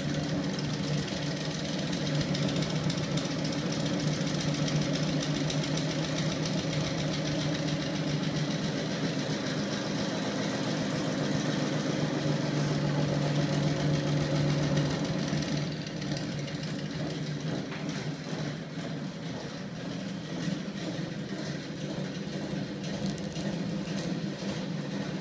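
Homemade magnet-driven flywheel engine prototype running: a small electric motor spinning a stack of steel flywheel discs and a crank, giving a steady mechanical hum with a fast rattle. It drops a little in level about two-thirds of the way through.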